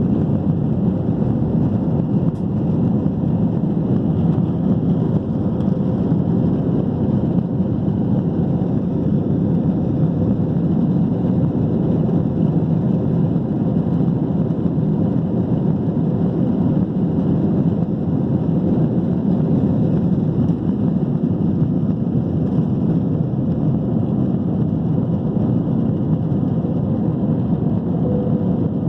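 Steady cabin rumble of a Boeing 737-800 with its CFM56 turbofans running under power and air rushing over the fuselage, heard from inside the passenger cabin.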